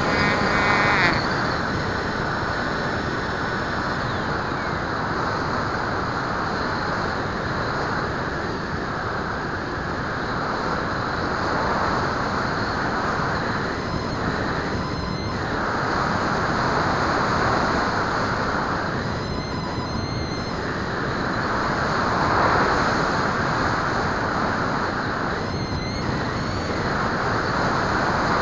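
Airflow rushing over the onboard camera's microphone on a Bixler FPV model plane in flight: a steady noisy rush that swells and eases every few seconds. A higher-pitched whine stops about a second in.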